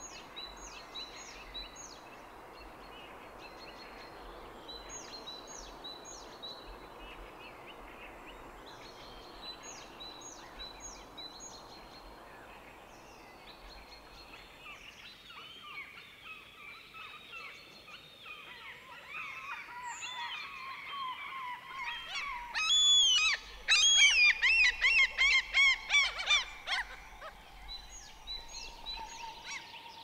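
Birds calling at dawn. A small songbird gives quick groups of short, high chirps. Then gulls join in, building to a run of loud, wavering yelping calls for several seconds about three-quarters of the way through.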